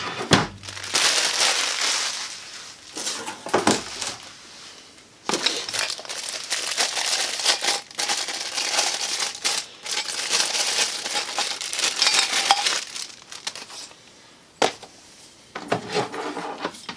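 Plastic packaging crinkling and rustling in irregular bursts as a new angle grinder and its parts are handled, with short clinks and knocks of hard tool parts.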